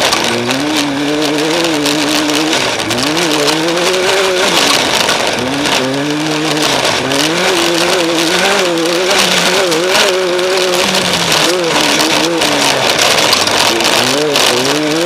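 Off-road race vehicle's engine revving up and down over and over as the throttle is worked, over a steady rushing noise.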